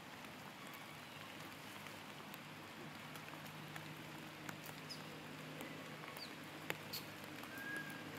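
Faint outdoor forest ambience: a steady low hum under a soft hiss, with scattered small clicks and a few short, high chirps from about halfway on.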